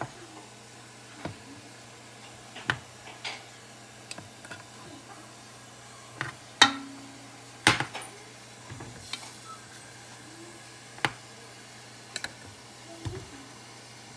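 Stainless steel tumblers being set one by one into an aluminium pressure cooker on its steamer stand: scattered metal clinks and knocks, the two loudest close together around seven seconds in, over a low steady hum.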